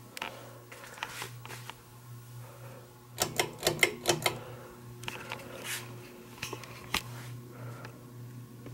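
Winnower ceiling fan's motor humming steadily. A quick run of sharp clicks comes about three to four seconds in, with a few scattered clicks elsewhere.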